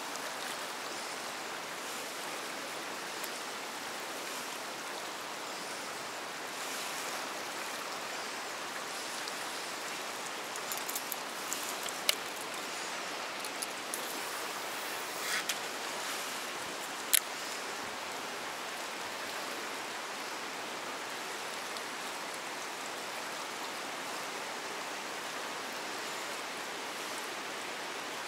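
Fast river water rushing steadily through rapids. A few short sharp clicks cut through the rushing partway through, two of them louder than the rest.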